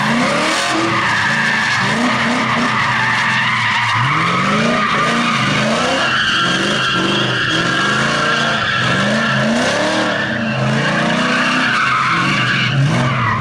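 Drift car sliding with its engine revving up and down about once a second as the throttle is worked, and its rear tyres squealing continuously through the slide.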